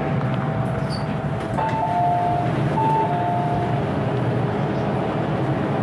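MTR M-Train electric multiple unit running, heard from inside the car: a steady rumble of wheels on track and running gear, with thin steady whine tones that jump between two pitches a few times in the middle.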